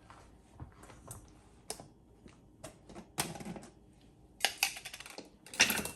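Scattered light clicks and taps from kitchen containers and utensils being handled, with three short louder scraping noises in the second half.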